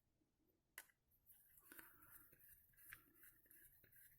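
Near silence, with a few faint ticks from small plastic parts being handled.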